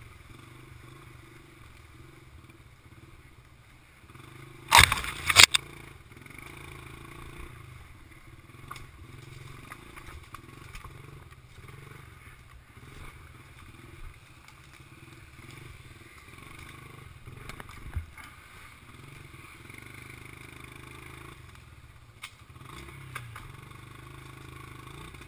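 Mini bike engine running steadily while the bike rolls over rough forest ground, with scattered knocks from the bumps. About five seconds in come two loud scraping bursts, much louder than the engine.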